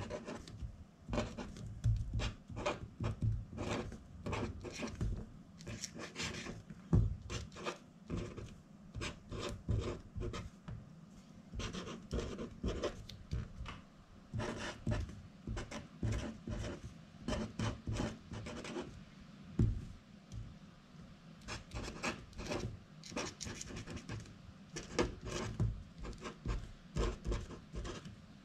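Black felt-tip marker pen writing on a sheet of paper: quick scratchy strokes, several a second, as the letters are formed, with short pauses between words.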